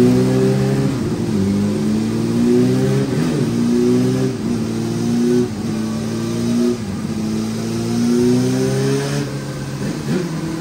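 2005 Yamaha YZF-R6's inline-four engine with an aftermarket Lextek header and silencer, running hard on a chassis dyno. It holds a fairly even pitch, dipping and climbing again every second or two.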